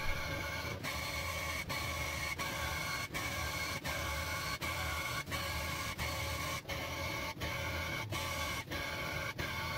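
Electric tufting gun running, its motor and reciprocating needle whirring steadily. The whir breaks off briefly about every three-quarters of a second.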